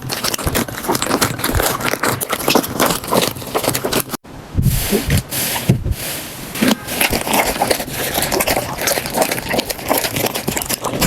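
Slime being squeezed and pressed by hand, with dense crackling and popping. The sound breaks off for a moment about four seconds in, then picks up again with a few low squelching thuds.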